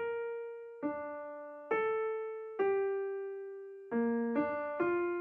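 Slow solo piano melody: single notes struck about once a second, each left to ring and fade, then three quicker notes near the end.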